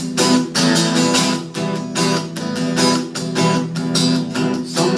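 Acoustic guitar strummed in a steady rhythm, ringing chords under a worship song, with no singing.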